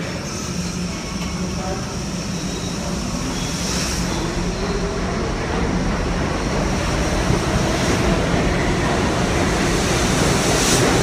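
R68 subway train pulling out of the station and gathering speed, its camshaft-controlled DC traction motors and wheels on the rail getting steadily louder over a constant low hum.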